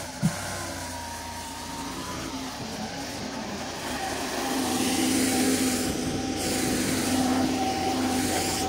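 Tractor engine running steadily, louder from about halfway through, with one sharp knock just after the start.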